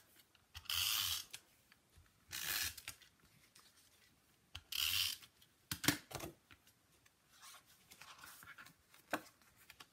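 Adhesive tape runner drawn across cardstock in three short scratchy strokes, about half a second each, laying adhesive on the black layer. A few sharp clicks and soft paper rustling follow as the card layers are handled.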